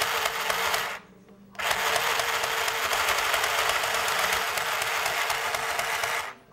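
Michley Double Stitch mini sewing machine stitching fabric, running with a fast, even clatter of needle strokes. It stops briefly about a second in, runs again for about four and a half seconds, and stops near the end.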